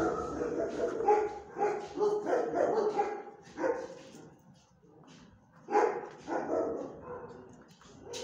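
A dog barking repeatedly: a fast run of barks through the first few seconds, a pause, then another short volley about six seconds in.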